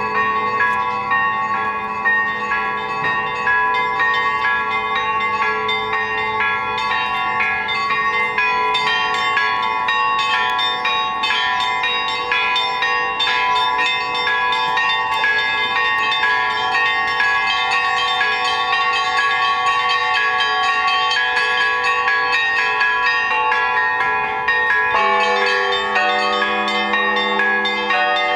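Russian Orthodox church bells rung together in a full peal by one bell ringer: small bells chime in a rapid, continuous pattern over the lingering tones of larger bells, and the deeper bells are struck afresh near the end.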